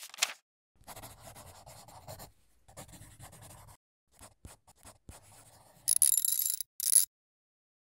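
Marker pen scribbling on a whiteboard: a brief swish at the very start, several scratchy drawing strokes, a few light ticks, then two louder, squeaky strokes near the end.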